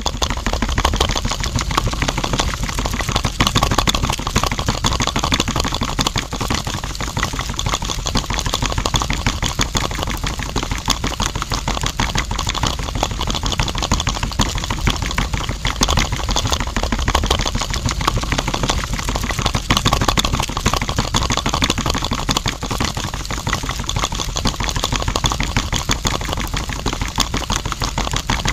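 Small electric motor of a homemade miniature concrete mixer, turning a tin-can drum of wet concrete, running steadily with a fast, even rattle.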